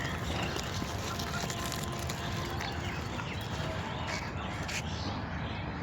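Steady background noise with a few faint, brief bird calls.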